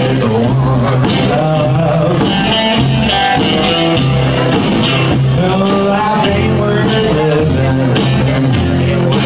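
Live blues trio playing: a guitar over upright bass and a drum kit with cymbals, and a man singing.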